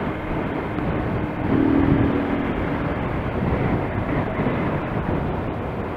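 Small motorcycle riding along a street: engine running under a steady rush of wind on the helmet microphone, with a brief steady tone about a second and a half in.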